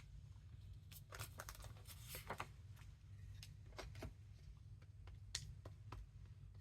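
Faint, scattered taps and paper handling as ink stamps are pressed onto paper, over a low steady hum.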